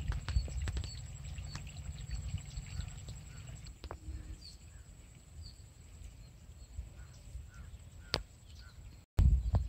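Open-field ambience: small birds chirping now and then over a steady high-pitched whine, with a low rumble of wind on the microphone that fades after the first few seconds. A single sharp click comes near the end.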